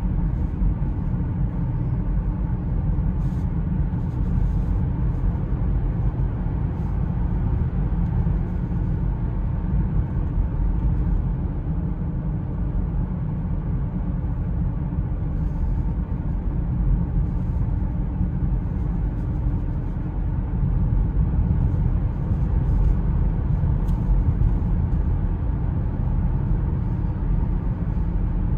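Steady in-cabin drive noise of a 2002 Lexus IS300 cruising along the road: a low rumble of tyres and road mixed with the hum of its 3.0-litre inline-six (2JZ-GE).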